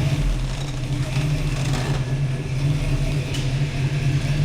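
Car engine idling with a steady low hum while the car is eased backward.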